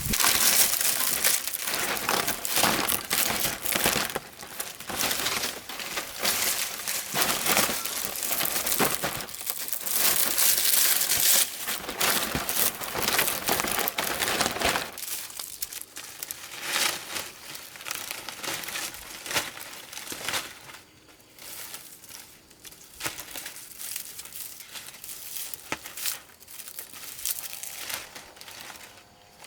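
Dry material crackling and rustling as it is handled: dense and loud for about the first fifteen seconds, then sparser and quieter.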